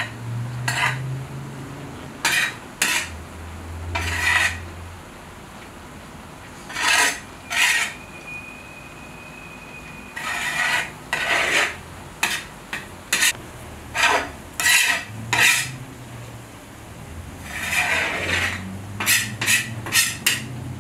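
A metal skimmer scrapes and stirs cooked plov rice against the wall of a large kazan, in a series of irregular scraping strokes as the rice is turned and mixed.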